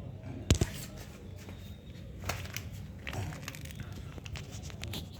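Crinkling and rustling handling noises, with a sharp double knock about half a second in and scattered small clicks after it.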